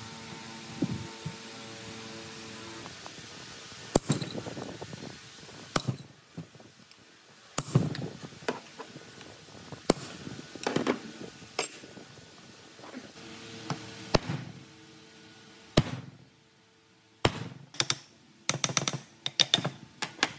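Tools and parts being handled during a machine restoration: a string of sharp knocks and clicks at irregular intervals, closing with a quick cluster of clicks near the end. A faint steady hum sits under the start.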